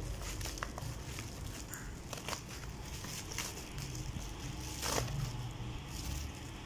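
Bubble-wrap packaging crinkling and rustling as hands pull it open, with scattered small crackles and a louder rustle about five seconds in.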